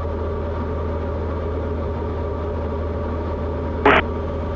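Steady drone of a Cessna light aircraft's engine and propeller in flight, heard in the cockpit, with a short crackle near the end.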